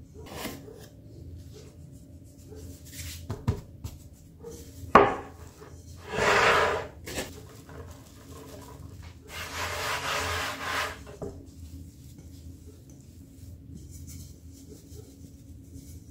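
Hands working risen cinnamon-bun dough and spreading flour over a wooden cutting board: intermittent rubbing and scraping, with two longer stretches of about one and two seconds, and a single sharp knock about five seconds in.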